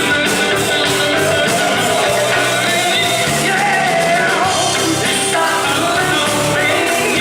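A band's song playing, with singing over the instruments and moving bass notes, steady and loud throughout.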